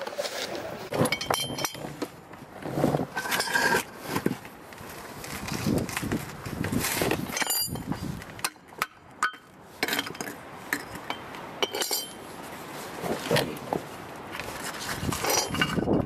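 Irregular sharp metal clinks and clunks from the spare-tire drive bar and wrench and the hoist, mixed with scraping and rustling as the spare wheel is worked loose by hand.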